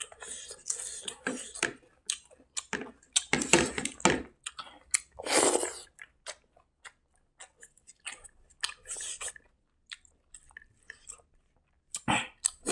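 Close-miked chewing of a mouthful of rice and side dishes eaten by hand: wet, clicking mouth sounds, busy for the first half and sparser in the second, with one longer breathy sound about five seconds in.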